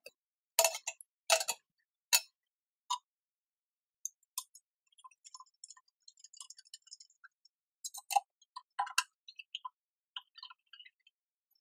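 Irregular light clicks and metal clinks of small steel parts or hand tools being handled, with three louder knocks in the first two seconds and another pair around eight to nine seconds in.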